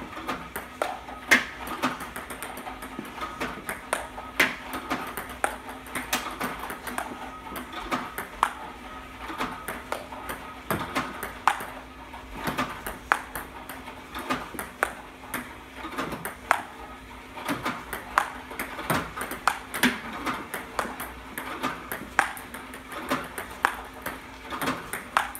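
Table tennis balls fed by a ball robot, clicking off paddles and bouncing on the table in a continuous drill, about one or two hits a second, with a steady faint hum underneath.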